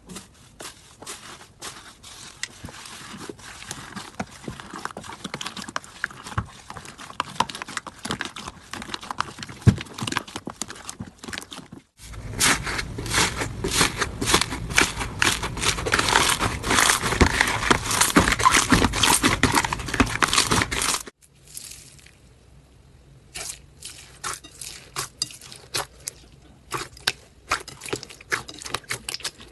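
Slime being worked, a dense run of small crackling pops and clicks. The clicks get suddenly louder and thicker about twelve seconds in, then thin out and quieten about twenty-one seconds in.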